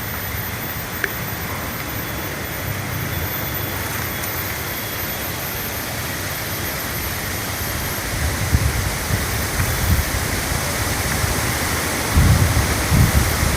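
Steady rushing outdoor noise, with wind buffeting the microphone in low rumbles from about eight seconds in, growing stronger near the end.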